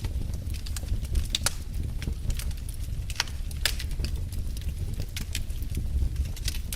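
Wood fire crackling in a fireplace: irregular sharp pops and snaps, a few every second, over a steady low rumble of the burning logs.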